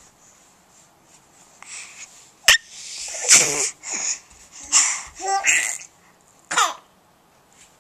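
A baby's short breathy squeals and shrieks, five or six bursts close to the microphone, one ending in a falling squeal. A sharp click comes just before the first burst.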